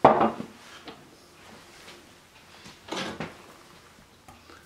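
A sharp knock of a kitchen item being set down on a stainless steel counter, then a softer knock about three seconds in.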